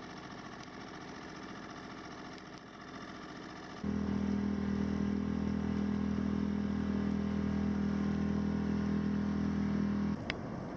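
Boat engine running steadily at low speed. About four seconds in it becomes much louder, with a strong low hum, then drops away suddenly near the end, leaving a rushing noise of water and wind.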